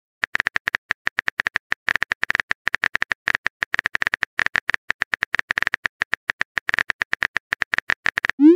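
Smartphone on-screen keyboard tapping sound effect: quick, irregular taps, about eight to ten a second, as a text message is typed. Near the end a short rising swoop, the message-send sound.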